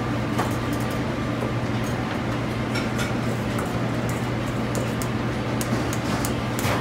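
Steady drone of a commercial kitchen's exhaust hood fans, with a low hum throughout and a few light clinks of a metal spoon against a stainless steel mixing bowl.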